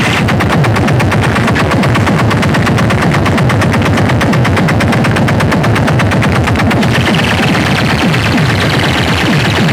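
Heavily amplified DJ sound system playing a competition track: a fast machine-gun-like rattle over dense booming bass with repeated falling bass sweeps. The rattle drops away about seven seconds in, leaving the bass and music.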